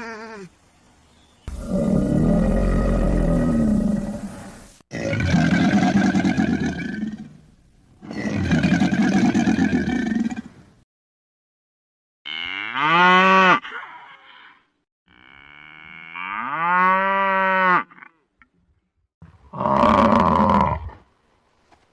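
Animal calls: three long, low calls, then two shorter calls that sweep steeply in pitch and one more call near the end.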